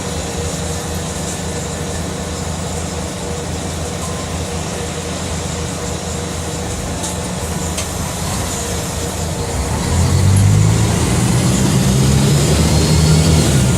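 Mercedes-Benz OM 457 LA turbocharged, intercooled inline six-cylinder diesel of a city bus running steadily at low revs. About ten seconds in it pulls harder, growing louder with its note rising slightly as the bus accelerates.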